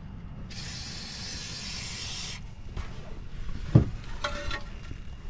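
Aerosol can of rust-inhibitor coating spraying through its straw nozzle in one steady hiss about two seconds long, followed a little later by a sharp knock.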